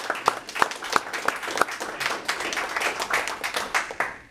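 Audience applauding with many separate hand claps, dying away about four seconds in.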